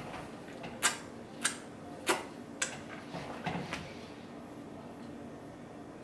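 Four sharp clicks and knocks about half a second apart, from a plate being cleared off a wooden table and a glass picked up, then a few softer sounds of handling and drinking.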